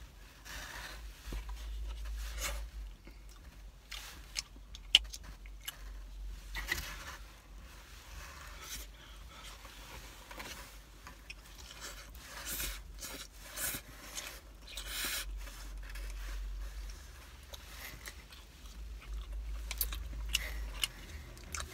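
A person biting and chewing a slice of pizza close to the microphone: irregular wet mouth clicks and crunches of the crust, one sharper click about five seconds in. A steady low hum runs underneath.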